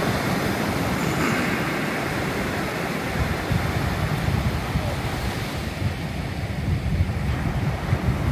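Steady rush of sea surf breaking on the beach, mixed with wind buffeting the microphone in an uneven low rumble.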